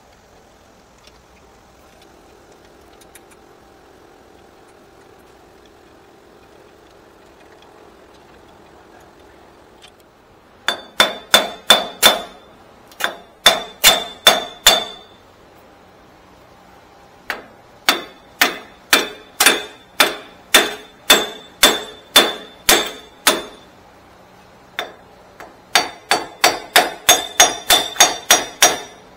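Repeated hammer blows on the backed-out bearing bolt heads, driving a Toyota Tacoma's front wheel bearing assembly out of the steering knuckle. Sharp metal-on-metal strikes with a ringing note come in four bursts, starting about a third of the way in, up to about three blows a second.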